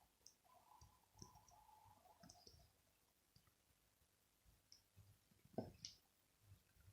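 Near silence, with a few faint scattered clicks and a sharper click about five and a half seconds in.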